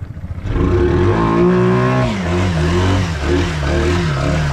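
ATV engine revving hard as the four-wheeler pushes through deep pond water: the pitch climbs about half a second in, holds high, then drops and wavers with the throttle.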